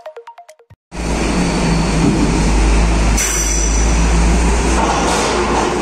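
The last notes of an electronic intro jingle die away, then a steady loud low engine rumble on a ferry's car deck as a light box truck drives up the loading ramp, with one short clank about three seconds in.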